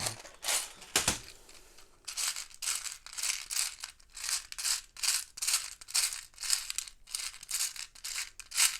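Loose plastic Lego pieces rattling as they are shaken and sifted, in quick repeated bursts about three a second from about two seconds in.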